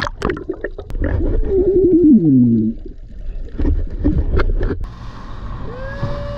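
Underwater sound around a snorkelling spearfisher: clicks, bubbling and a low rumble, with a long muffled groan falling in pitch about two seconds in. About five seconds in it gives way to a steady rush of wind and water from a boat under way, with a short rising-and-falling tone near the end.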